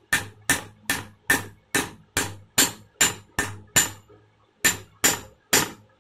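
Hammer tapping a new brass impeller down onto a domestic water pump motor's shaft: a quick, even run of sharp metallic knocks, about two and a half a second, with a brief pause about four seconds in before the tapping resumes.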